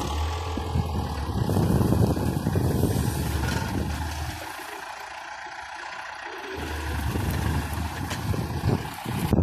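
John Deere tractor engine running as its front loader lifts a round straw bale onto a trailer. The engine drops off for about two seconds midway, then comes back up.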